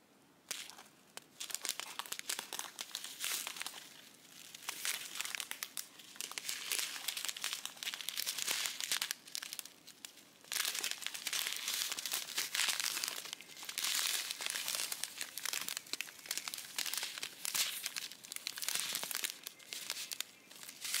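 Small clear plastic bags of diamond-painting drills crinkling as fingers handle and turn them, in irregular bursts with short pauses.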